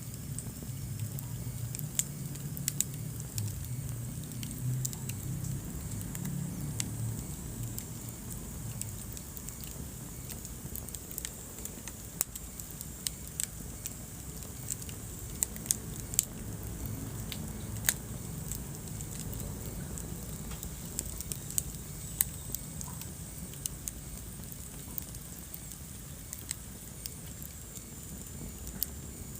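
Wood fire burning in a fireplace, crackling with irregular sharp pops over a low, steady rumble of flame.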